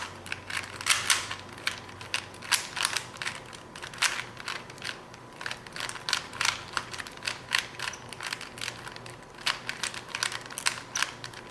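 Rubik's Cube being turned rapidly by hand during a speed solve: its plastic layers click and snap in quick, irregular runs of several turns a second.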